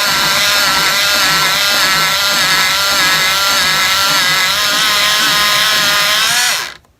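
Electric pencil sharpener's motor running as a pencil is held in and ground to a point, its whine wavering slightly in pitch under the load. Near the end it stops, the pitch sliding down as the motor winds down.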